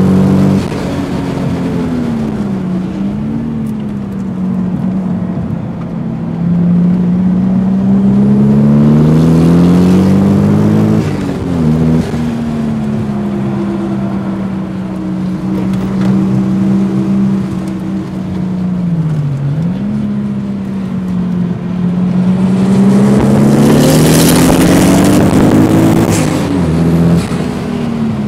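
Car engine heard from inside the cabin, driven hard: the revs climb in long pulls and drop sharply several times at shifts or lifts. Near the end, a hissing rush joins the engine as the revs climb highest.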